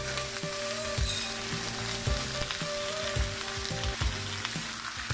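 Chicken pieces sizzling in hot oil with sautéed garlic, ginger and onion in a frying pan, a steady hiss with irregular dull knocks from the pan.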